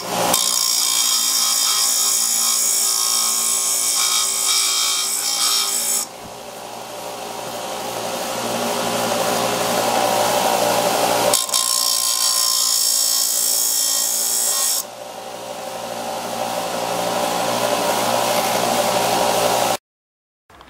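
Bench disc sander grinding the threads of a steel wood screw, harsh and loud for about the first six seconds and again for about three seconds later on, with the sander's motor running in between. The screw is being ground flat on its sides to give the threads cutting teeth, turning it into a tap for wood screws.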